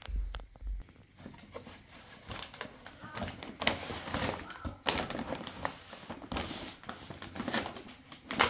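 Brown wrapping paper crinkling and rustling in irregular crackles as a dog noses and paws at a wrapped present, starting about two seconds in.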